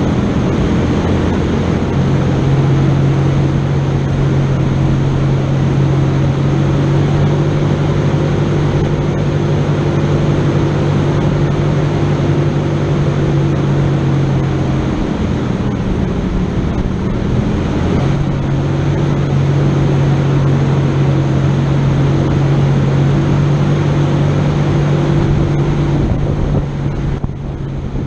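An engine running under load at a steady speed over a constant rush of noise. It eases off for a few seconds about fifteen seconds in, picks back up, and drops again near the end.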